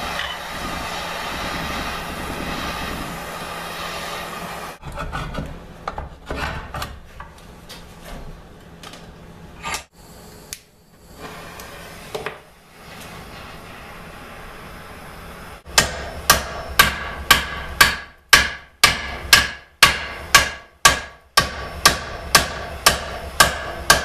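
Propane torch hissing as it heats a quarter-inch A36 steel plate clamped in a vise. About two-thirds of the way in, a hand hammer starts striking the hot plate in steady blows, about two a second, each one ringing: the plate's corner is being hammered down into shape for a new plowshare.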